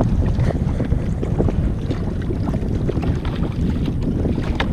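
Steady wind buffeting the microphone, a dense low rumble, with a few faint knocks.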